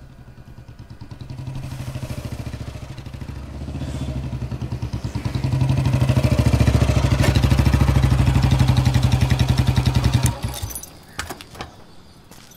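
Motorcycle engine running with a regular pulsing beat, getting louder as the bike rides up, then switched off about ten seconds in. A few clicks and clatters follow.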